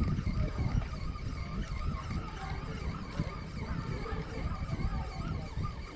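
Low, uneven rumble of wind and handling noise on a chest-worn camera's microphone, with a faint hiss above it.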